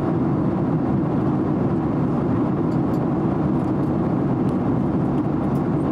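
Steady cabin noise of a Boeing 767-300 airliner in cruise: a continuous low rush of engine and airflow noise, with a few faint ticks.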